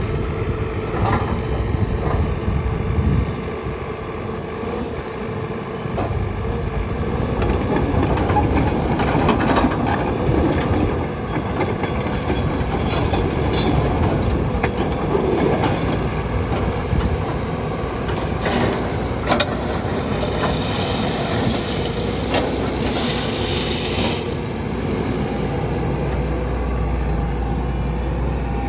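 JCB JS145LC hydraulic track excavator running, its diesel engine holding a steady note, with scattered knocks and clanks from the machine working. A hissing stretch comes about two-thirds of the way through, and a deeper rumble near the end.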